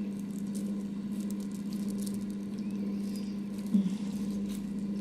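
Hands squeezing and pressing a raw beef roast pocket stuffed with ground-meat filling, giving faint wet squishing and small ticks over a steady low hum, with one short bump about three-quarters through.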